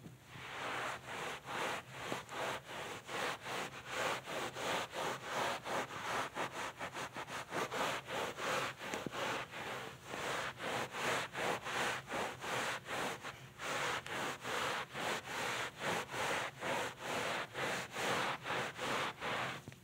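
Wet cloth scrubbed hard back and forth over carpet pile: a rhythmic hissing rub at about three strokes a second, with a brief pause about two-thirds through.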